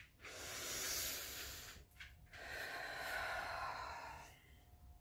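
A woman breathing heavily close to the microphone: two long, noisy breaths one after the other, the second starting about two seconds in.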